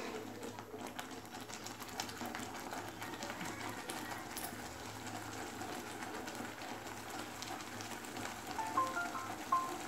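Thick besan zunka bubbling and spluttering in a steel kadhai on a gas stove: a steady crackly hiss with small pops. A few short high chirps near the end.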